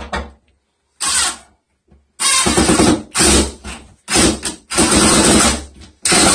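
Yellow DeWalt cordless drill driving screws through the side of a recessed medicine cabinet into the wall framing, running in about six short bursts of half a second to a second, stopping and starting between screws.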